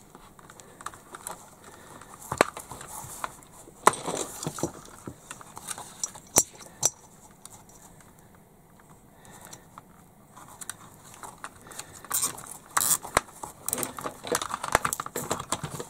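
A nylon cable tie being fitted round a plastic toy excavator arm: scattered light clicks and handling noise, then a run of rapid ratcheting clicks near the end as the tie is pulled through.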